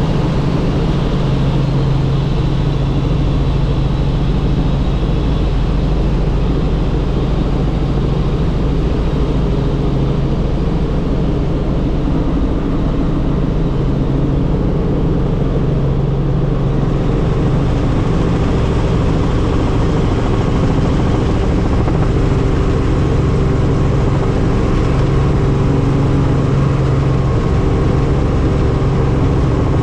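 Helicopter engine and rotor running steadily, a loud unbroken drone with a constant low hum.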